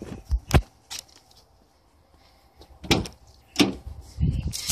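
A 1995 Nissan 300ZX's door being opened: several separate sharp clicks and knocks from the handle and latch, with handling noise between them.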